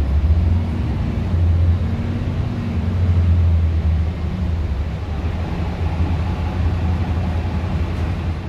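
Mercedes-Benz O530 Citaro bus heard from inside the passenger cabin on the move: a steady low engine drone with road noise, easing a little about halfway through.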